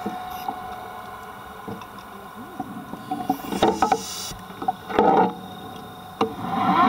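Underwater audio through a camera housing: a faint steady hum with scattered clicks and knocks, and two short bursts of rushing noise about three and a half and five seconds in.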